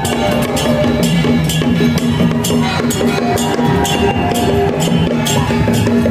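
Loud percussion-led music accompanying a temple procession troupe's dance: drums and crashing strokes about twice a second over held tones.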